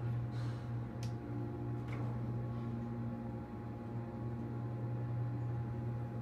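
Otis hydraulic elevator car in motion: a steady low hum with a couple of faint clicks.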